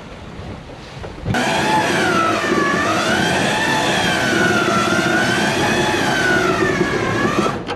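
Powered cray pot hauler winding in the rope, a steady mechanical whine that wavers slowly up and down in pitch as the load changes, starting suddenly about a second in.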